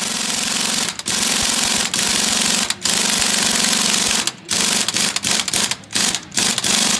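Impact wrench hammering on a large nut at a truck's wheel hub, in long trigger bursts broken by brief pauses, then several short stop-start bursts near the end.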